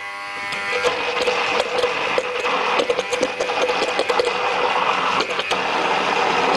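Hand-held immersion blender running in a tall beaker, blending a thick salad dressing of oil, cottage cheese and mustard. It dips briefly at the start, then runs with a steady whir.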